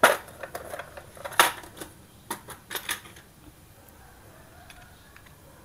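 Sharp clicks and clacks of a Daiwa PR100 baitcasting reel being handled as it is opened, its plastic cover and metal handle knocking in the hands. The loudest knocks come at the start and about a second and a half in; after about three seconds only faint handling remains.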